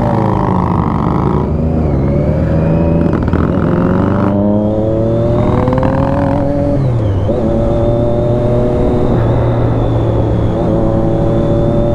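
Triumph Daytona 675's three-cylinder engine under way, its note rising twice as it accelerates, dropping about seven seconds in, then holding steady before rising again near the end.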